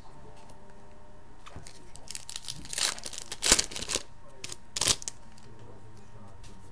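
Wrapper of a hockey card pack being torn open and crinkled by hand. A run of crackling starts about two seconds in, with the sharpest rips about halfway through and again about a second later.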